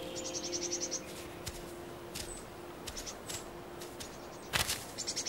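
Tits calling: short runs of rapid, high, repeated notes just after the start and again near the end, with scattered soft ticks and one louder sharp click a little before the end.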